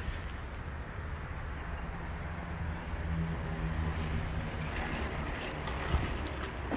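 Low, steady engine rumble with a hum that rises in the middle, and one short knock about six seconds in.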